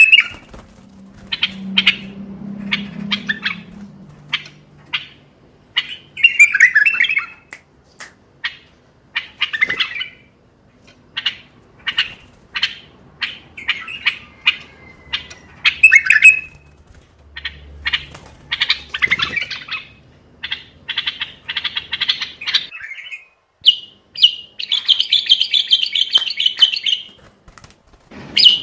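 Common bulbul singing: a run of short, sharp chirps and whistled notes in quick bursts, with a longer, rapid chattering phrase near the end.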